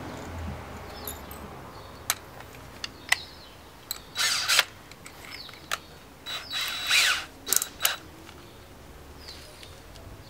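Power drill's keyless chuck being ratcheted as a drill bit is changed and tightened: two short ratcheting bursts, about halfway through and a few seconds later, with sharp clicks of the bit and tool being handled before and after.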